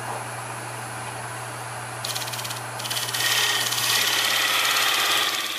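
Wood lathe motor humming steadily as it spins a mesquite hollow vessel; about two seconds in a narrow parting tool starts cutting into the spinning wood at the vessel's base, a hissing scrape that grows louder and fades near the end. This is the parting-off cut that separates the vessel from the lathe.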